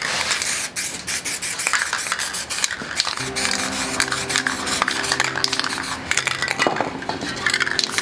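Aerosol spray paint can hissing as paint is sprayed, with many sharp clicks and knocks. Soft background music with held low notes comes in about three seconds in.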